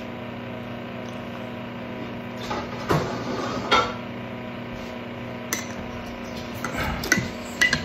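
Cutlery clinking and scraping against a plate several times during eating, over a steady low hum.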